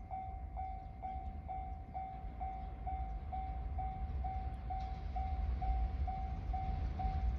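Japanese level-crossing warning bell ringing, a steady electronic ding repeating about twice a second, over a low rumble that grows slightly louder.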